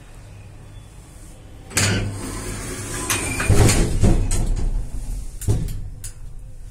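Passenger lift's glass flap doors moving with a rattle that starts suddenly about two seconds in, with several sharp knocks, after a low steady hum.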